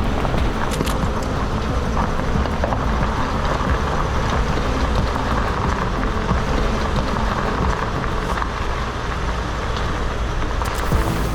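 Mercedes Sprinter van driving, its engine running steadily under a constant rumble of tyre and road noise, with a few small knocks.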